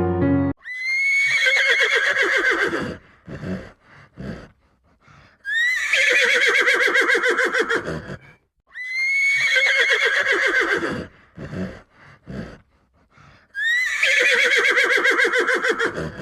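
Horse neighing four times, each whinny a shrill rising onset breaking into a fast, quavering descent, with short fainter sounds between the calls.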